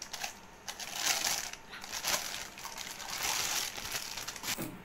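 Clear plastic packaging bag crinkling in irregular rustling bursts as it is handled during unwrapping.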